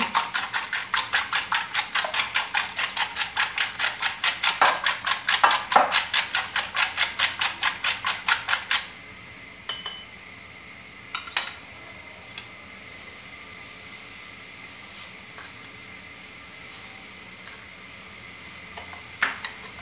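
Coiled spring whisk beating eggs and milk in a bowl: fast, even clinking strokes, about five a second. The beating stops about nine seconds in, followed by a few separate light clinks.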